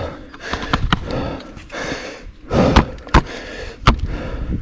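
Mountain bike noise over rough ground: a rough rustling haze broken by four sharp knocks and clatters, one about a second in, two close together near three seconds and one near four seconds.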